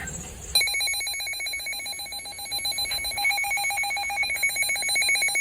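Emergency alert tone on NOAA Weather Radio: a loud, rapidly pulsing electronic alarm tone that starts suddenly about half a second in, signalling that a new warning broadcast is about to follow.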